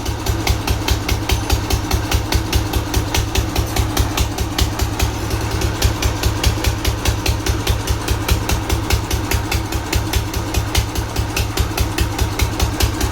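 Old diesel engine running steadily, with a fast, even beat of firing pulses.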